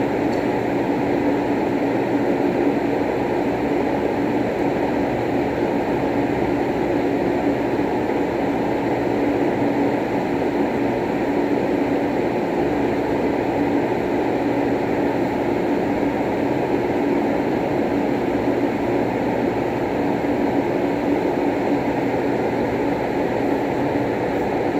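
Steady droning background noise with a faint low hum in it.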